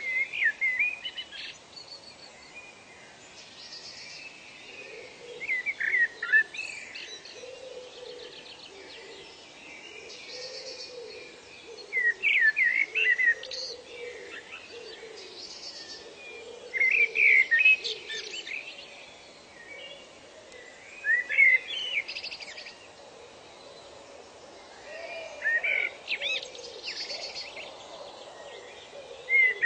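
Songbirds singing in a nature ambience: a loud song of quick, sweeping notes comes back every four to five seconds. Fainter lower calls and a steady background hiss run beneath it.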